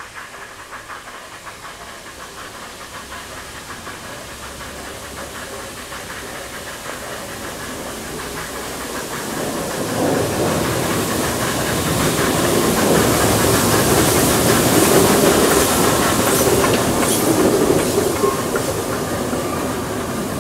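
Narrow-gauge Garratt steam locomotive No. 87 approaching and passing close by with a hiss of steam, growing steadily louder, then its train of carriages rolling over a steel girder bridge with wheels clicking over the rail joints.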